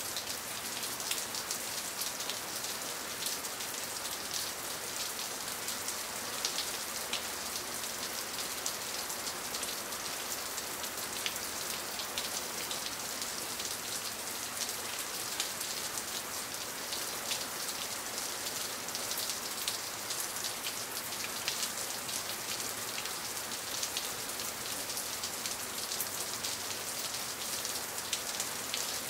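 Steady rainfall pattering on a surface, a continuous hiss full of many small, sharp drop impacts.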